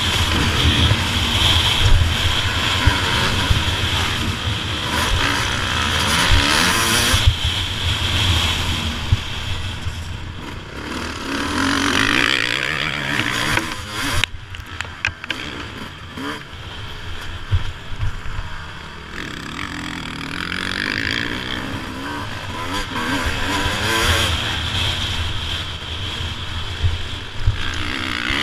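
Suzuki RM250 two-stroke motocross bike ridden hard round a dirt track, heard from a camera mounted on it: the engine revving up and easing off in turn, with wind rushing over the microphone. The engine eases in the middle, where a few sharp knocks come through, then picks up again.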